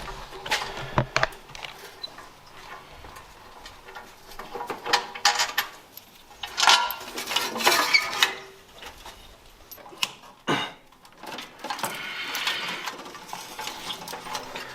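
Metal hand tools and engine parts clinking and clattering in irregular spells during engine teardown work, with one sharp knock about ten and a half seconds in.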